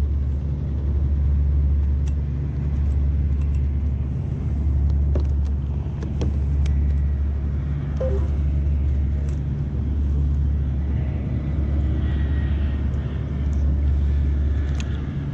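Wind rumbling on the microphone, a loud, deep, steady rumble that swells and eases slightly in gusts, with a few faint clicks over it.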